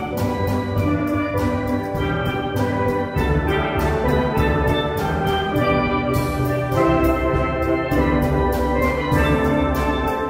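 Live instrumental ensemble music: many ringing pitched notes changing in quick succession over a steady drum beat.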